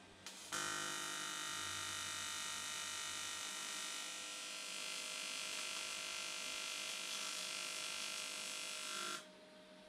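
TIG welding arc on 3 mm aluminium sheet, running as a steady electric buzz (the AC arc used for aluminium). It strikes about half a second in and cuts off abruptly near the end, as one weld run along the plate's edge.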